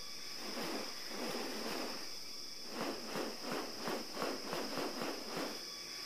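Rainforest insects droning steadily at a high pitch, with a run of short rhythmic swishes, about five a second, from about three seconds in to five and a half, from a bird-of-paradise's wings during its spread-wing display.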